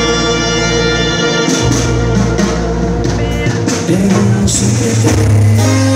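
Live banda sinaloense brass band playing, amplified: a held brass chord for about the first second and a half, then the band moves into a rhythmic passage carried by tuba and drums.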